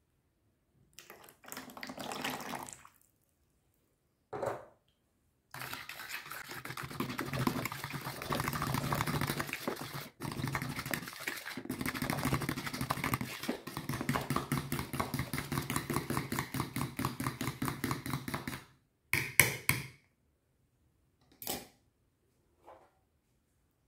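A fork whisking thin liquid batter in a plastic bowl: quick, even strokes, several a second, for about thirteen seconds, followed by a few sharp knocks. Before that, a lemon is twisted briefly on a small plastic citrus reamer.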